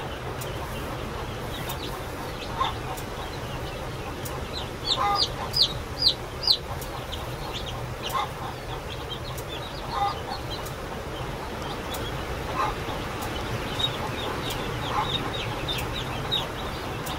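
Newly hatched chicks peeping: a run of short, high chirps that fall in pitch, thickest about five to seven seconds in, over a steady low hum.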